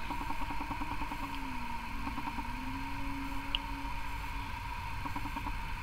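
Steady low background hum with a faint tone that drifts slightly in pitch, and no distinct handling sounds.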